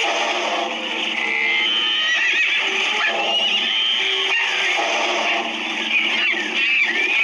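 Dense, steady jumble of overlapping animal and bird calls, with many short rising and falling cries laid over one another.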